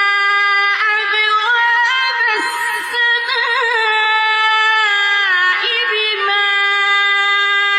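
A single voice chanting Quran recitation in melodic tajweed style, drawing out long held notes with wavering, ornamented turns in pitch.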